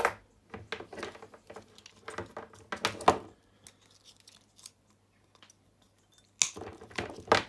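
Cutters snipping through a mains power cord's cable: several sharp snips and clicks, the loudest about three seconds in, then a pause and more clicks and handling near the end.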